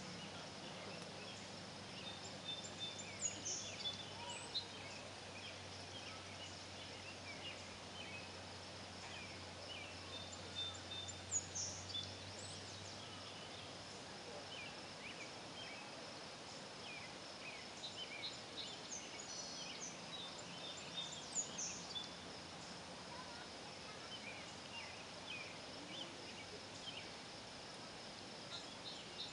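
Quiet dusk chorus at a lake: birds chirp and call in short, scattered notes over a steady high-pitched hum. A faint low drone underneath fades out about halfway through.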